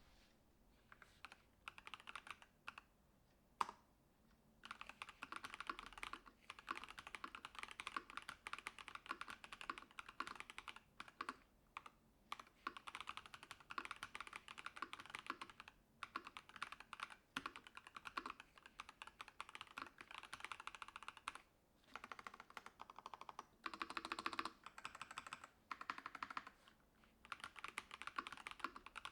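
Typing on a ROG Strix Scope II 96 Wireless mechanical keyboard with prelubed ROG NX Snow linear switches: fast runs of keystrokes in bursts, with short pauses between them.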